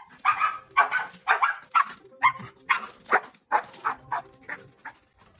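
Dog barking in a quick run of short barks, about two or three a second, growing fainter near the end.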